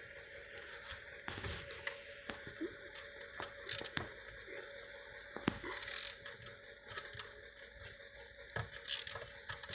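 Scattered metallic clicks, scrapes and short rattles of a hand tool working at the gear shifter's cable nut, a 9 mm socket loosening it, over a faint steady hum.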